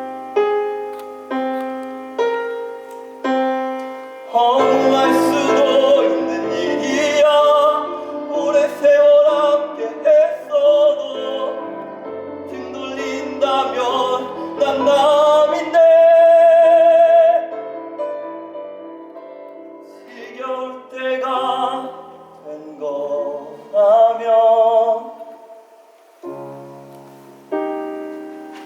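Piano accompaniment with a singing voice. The piano plays alone at first. From about four seconds in, a voice sings with vibrato over it, holding one long note around the middle. The piano then carries on, with a few shorter sung phrases and piano alone near the end.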